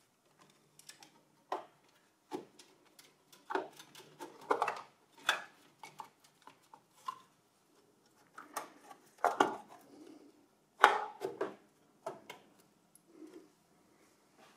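Handling noise of parts being fitted into an open steel desktop PC case: plastic cable connectors pushed home and a graphics card and its metal slot bracket seated, giving scattered clicks, clacks and light rattles. The sharpest knocks come about two-thirds and three-quarters of the way through.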